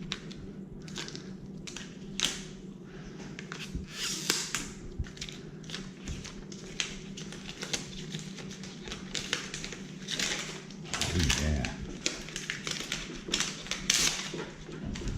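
Plastic wrapping being pulled off a new electric skateboard: crinkling and crackling in quick rustling bursts, loudest about four seconds in and again near the end.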